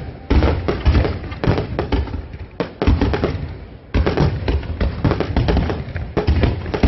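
Fireworks going off in a dense run of bangs and crackles, thinning to a brief lull in the middle and picking up again about four seconds in.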